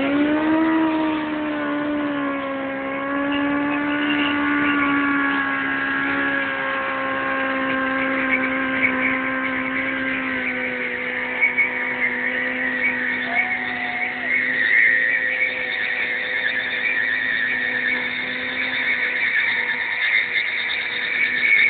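Sport motorcycle engine held at high, nearly steady revs during a burnout after a quick rise at the start, the rear tyre spinning on tarmac. A hissing tyre screech grows stronger from about a third of the way in.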